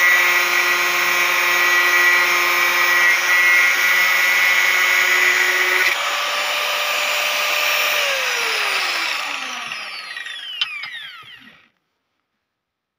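Black & Decker 820 W angle grinder with a cut-off wheel grinding through thick steel rebar under load. About six seconds in the wheel breaks through and the grinder runs free for a moment. It is then switched off, and its whine falls steadily in pitch as the wheel spins down to a stop.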